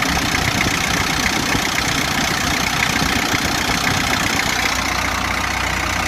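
Kia Bongo pickup engine idling steadily, with no valve tick, its valve clearance freshly set after a new head gasket and tune-up; smooth-running, like new.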